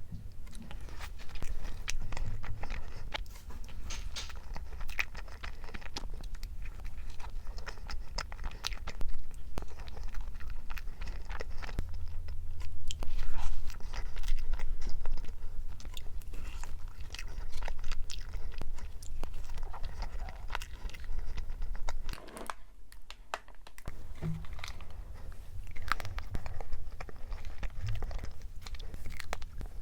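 A person biting and chewing food close to the microphone: irregular wet crunches and mouth clicks, with a short pause about three quarters of the way through.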